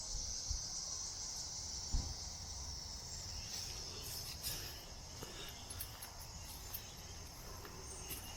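Steady, high-pitched insect chorus droning without a break, with a brief low bump about two seconds in.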